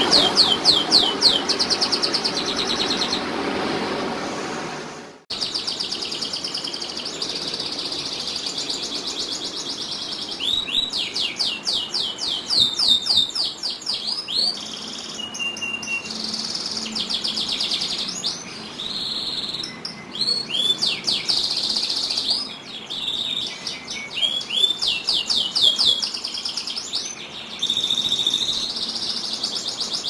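Domestic canary singing a long song of rapid rolling trills and repeated chirping notes, with a brief break about five seconds in.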